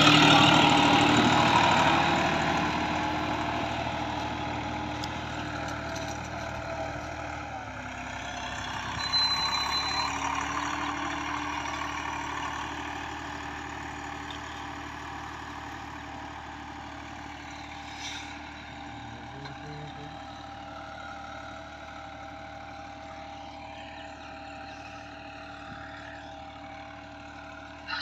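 Massey Ferguson 260 tractor's diesel engine running under load as it pulls an implement through the soil. It is loud at first and fades as the tractor draws away, with a brief swell about nine seconds in.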